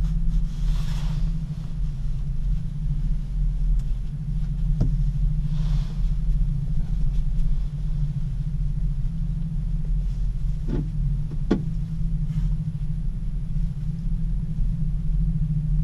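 Steady low rumble inside a moving aerial gondola cabin as it rides along the cable, with a few short knocks and creaks.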